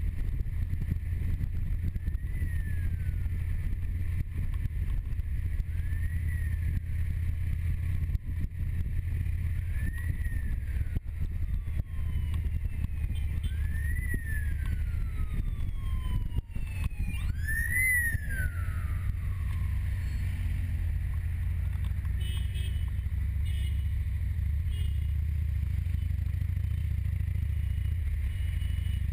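Motorcycle engine running with a steady low rumble of engine and wind while riding. Over it a siren wails, each cycle rising quickly and falling slowly about every four seconds, growing louder until a little past halfway and then fading out.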